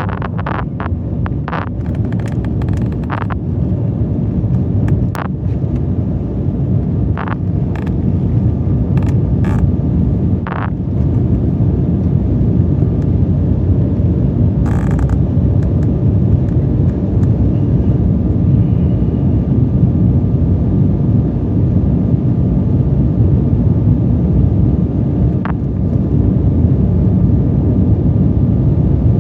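Inside the cabin of an Embraer 175 during takeoff, its turbofan engines and the rushing air make a loud, steady low rumble. Short rattles and knocks come through over the first ten seconds or so and then stop, and the rumble grows a little louder after that.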